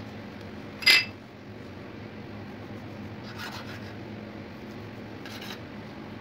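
Hands kneading stiff flour dough on a marble worktop, with one sharp ringing clink about a second in. A knife then cuts through the dough and scrapes on the marble twice, about two seconds apart.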